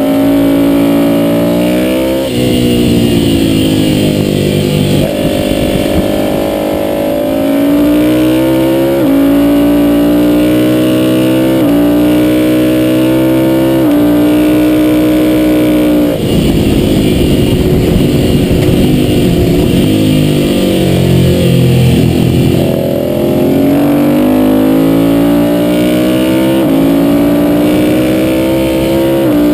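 Ducati V-twin sport bike at full throttle on track, heard from on board: the engine revs rise again and again, each cut off by a sudden drop in pitch as it shifts up a gear. About halfway through, the revs fall and waver for several seconds as the bike slows and goes back down the gears for a corner, then it pulls hard up through the gears again.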